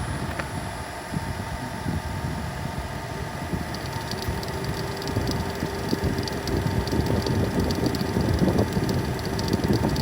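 Running noise from the engine bay of an early C27 Nissan Serena e-POWER: a steady mechanical hum with several constant whining tones. About four seconds in, a further tone and a faint, rapid high crackle join in. This is the abnormal engine-room noise the owner is recording.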